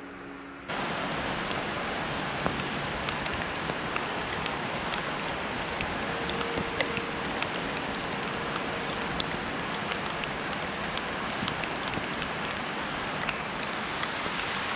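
Heavy rain pouring steadily: an even hiss dotted with scattered sharp ticks of drops striking nearby surfaces. It cuts in abruptly just under a second in.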